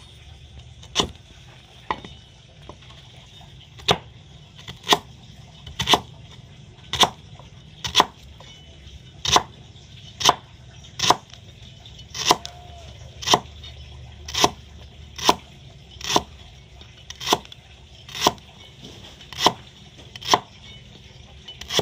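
A cleaver chopping through lemongrass stalks onto a thick round wooden chopping block, about twenty sharp single chops at roughly one a second.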